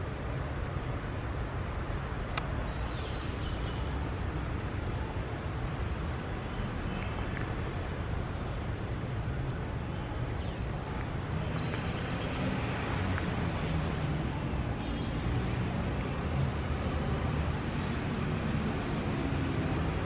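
Steady low outdoor rumble of distant traffic, a little louder in the second half, with a few faint short high bird chirps scattered through it.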